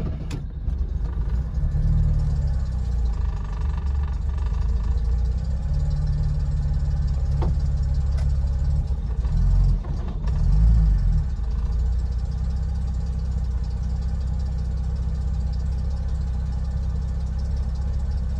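Mercedes-Benz 280SL's fuel-injected straight-six running just after a cold start, the revs rising and falling a few times, most strongly about ten seconds in, before it settles to a steady idle. The engine is still cold, and the car is described as cold-blooded, needing about 30 seconds before it can be driven.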